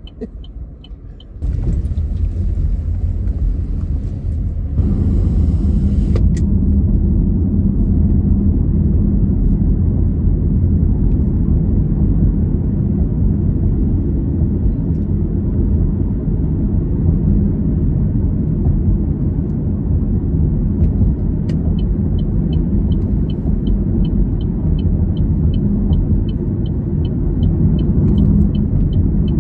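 Road and engine rumble inside a moving car's cabin, getting louder about five seconds in. Over the last third a steady ticking, about three ticks a second, from the turn-signal indicator as the car heads into a parking lot.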